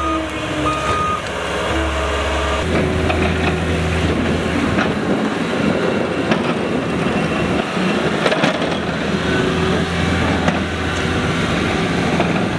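Cat 232D skid steer's diesel engine running as it drives across the lot with its Kage box plow, the noise thickening about three seconds in, with a few sharp clanks.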